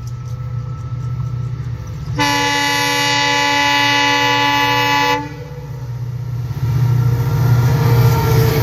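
WDP4D diesel locomotive approaching at the head of an express train: a low engine rumble throughout, one long horn blast of about three seconds starting about two seconds in, then the noise of the train growing louder as it draws alongside near the end.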